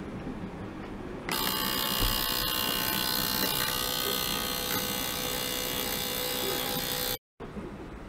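Small ultrasonic cleaner running with water in its tank: a loud hiss with many steady high whistling tones. It starts abruptly about a second in and cuts off suddenly near the end.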